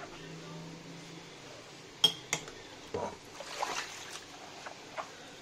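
Dishes being washed by hand in a stainless steel sink. Two sharp clinks of crockery come about two seconds in, then a knock, a stretch of sponge scrubbing on a ceramic bowl, and a few small knocks.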